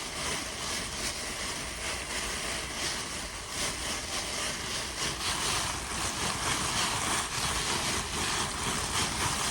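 A plastic shopping bag being crinkled and rustled by hand to imitate rain: a steady, dense crackle of many small crinkles.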